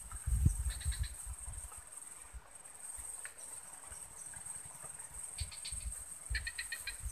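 Insects shrilling steadily in a high, unbroken whine, with a few short bursts of rapid chirps, about a second in and again twice near the end. Low bumps and rumbles, the loudest about half a second in, come from wind or handling on the microphone.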